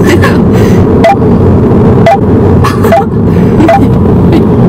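Loud, steady rumble of a car driving, heard inside the cabin, with light knocks about once a second.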